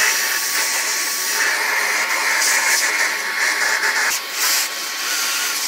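Vacuum cleaner running with a crevice nozzle held over a laptop's heatsink fins, sucking out the dust and fur that block its air exit while a brush loosens it. A loud, steady hiss with a faint whine.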